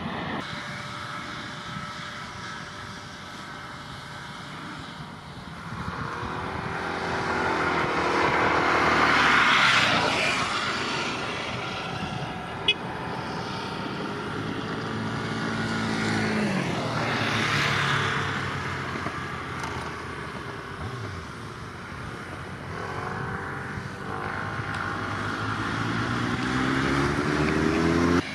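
Single-engine turboprop of a Cessna 208B Grand Caravan EX amphibious floatplane running as the plane rolls and taxis past. The engine and propeller tone swells and then slides down in pitch as it goes by, loudest about nine seconds in and again around seventeen seconds, and rises again near the end. A single sharp click about twelve seconds in.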